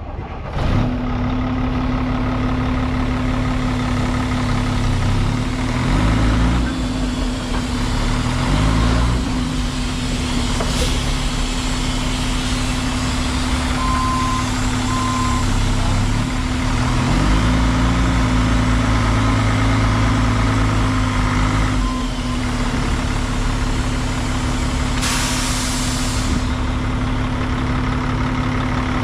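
Diesel engine of a 2003 Western Star quad-axle dump truck idling, revved briefly twice and then held up for several seconds before dropping back to idle. Two short beeps about halfway through, and a short hiss of air from the truck's air system near the end.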